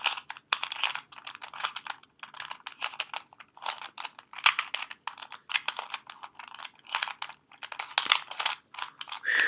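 A cheap plastic Rubik's cube being twisted layer by layer: quick runs of clicking and clattering plastic turns with short pauses between them, the cube being solved.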